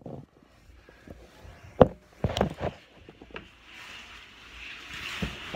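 Handling noise on the recording phone: a sharp knock about two seconds in, a quick cluster of bumps just after, then a rustling that grows louder near the end as something rubs over the microphone.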